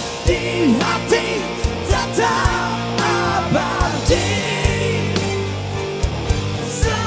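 Live rock band performance with male singers' voices over the band, with sharp beats landing regularly through it.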